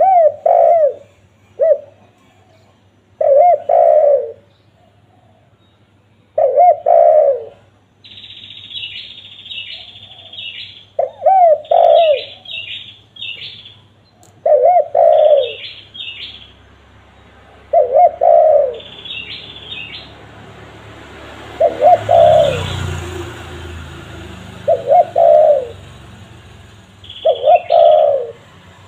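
Spotted dove (tekukur) cooing over and over, short low coo phrases every one to three seconds. A smaller bird chirps in quick, high notes between the coos from a few seconds in.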